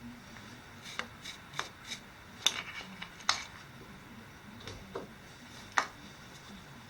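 A scattered series of sharp clicks and knocks, about eight in all, the loudest about two and a half, three and a half, and six seconds in: hard objects being handled or set down.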